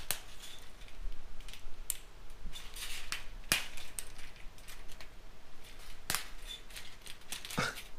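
Household scissors snipping through chicken wire: irregular sharp clicks as the blades snap through the wire strands, the strongest about three and a half, six and seven and a half seconds in.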